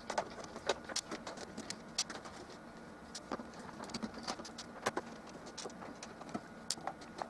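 Torx screwdriver undoing the screws of a coffee machine's plastic back cover: irregular small clicks and ticks of the bit, screws and plastic housing.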